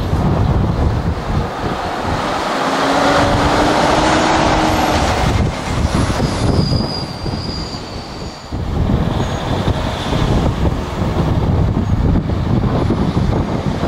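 A Mercedes-Benz Actros lorry pulling an empty car-transporter trailer drives slowly past, its diesel engine running over a heavy rumble of metal. There are brief high squeals a few seconds in.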